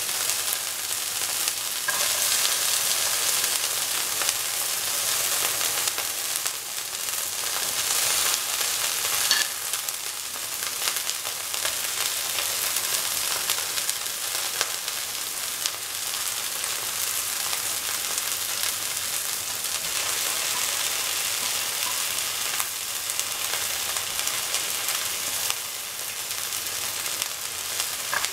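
Chopped okra sizzling in hot oil with fried ginger, turned with a spatula: a steady frying hiss with occasional light scrapes.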